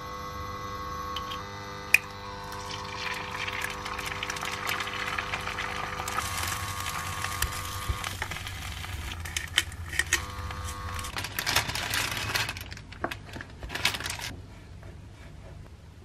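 Egg frying in oil in a non-stick frying pan: a continuous sizzle with crackling spits, starting after a sharp click about two seconds in and stopping about two seconds before the end. A steady hum from the hob runs underneath for the first half and fades out.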